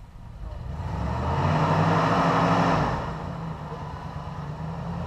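A rock crawler's engine revving up under load, holding high for a second or two, then easing back.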